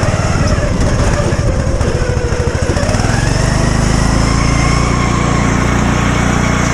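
Lawn mower engine running, revving up about three seconds in and holding at the higher speed.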